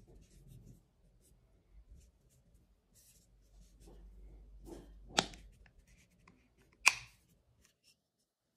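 Plastic earbud charging case handled in gloved hands: faint rubbing and rustling, then two sharp clicks about a second and a half apart as the lid is worked open.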